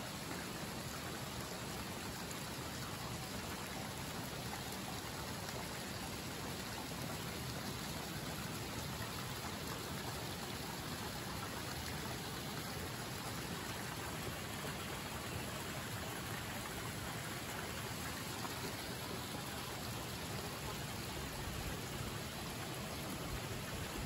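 Steady, even splashing of hot-spring water pouring from a rock spout into an open-air rock bath.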